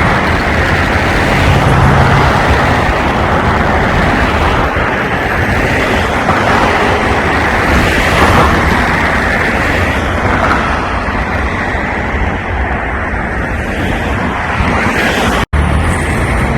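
Loud, steady outdoor rumble of road traffic mixed with wind buffeting the phone's microphone. The sound cuts out for an instant about fifteen and a half seconds in.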